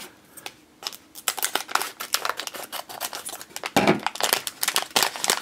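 Crinkly blind-bag toy packaging being handled and torn open: a dense run of small crackles and clicks, with one brief low thump about two-thirds of the way in.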